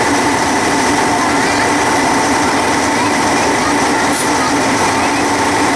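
Steady running noise of a vintage train heard from inside its cab: wheels on rail under a constant machinery hum with a few steady tones.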